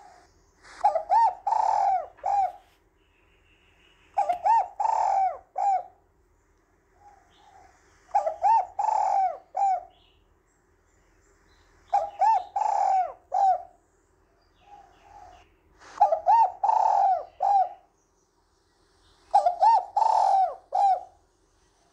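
Spotted dove cooing: its phrase of a few quick notes running into longer coos repeats six times, about every four seconds. A faint steady hum sits underneath.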